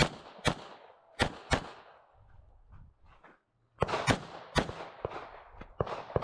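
A string of Glock pistol shots fired in rapid pairs while shooting a practical-shooting stage. There is a short lull in the middle, and the shots come faster again from about four seconds in.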